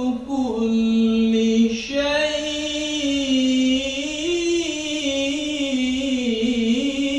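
A man reciting the Quran in the melodic tajweed style, drawing out long held notes that bend slowly up and down, with a brief break for breath about two seconds in.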